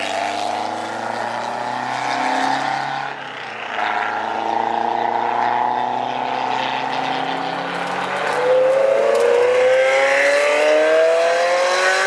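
Sports car engines accelerating past on a road course, one car after another, each note climbing in pitch as it pulls through the gears; the loudest climb begins about eight seconds in.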